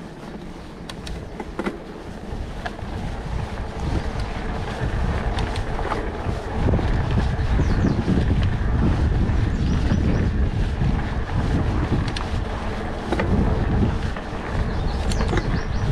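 Wind buffeting the microphone over the rumble of plus-size mountain bike tyres rolling on a dirt trail, with scattered small clicks and rattles from the bike. The rumble grows louder about six seconds in.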